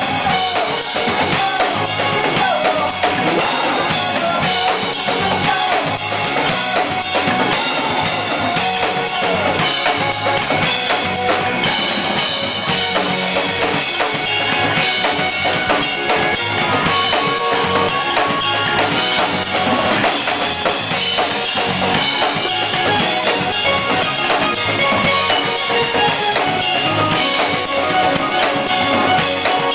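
Live band playing: a full drum kit with bass drum and snare hits driving the beat under electric guitar and bass guitar.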